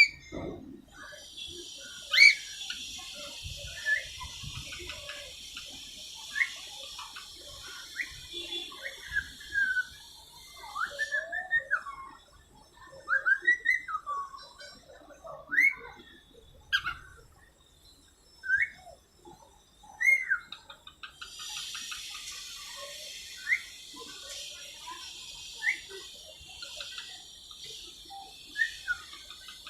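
Baby cockatiel chirping and whistling in short notes that glide up and down, scattered throughout, with a sharp, loud chirp about two seconds in. A steady high hiss sits behind the calls for the first third and again from about two-thirds of the way through.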